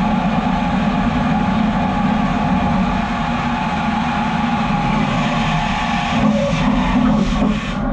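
Metal-cutting machine tool running steadily, a constant hum with a held whine. A quick run of short pulses comes near the end.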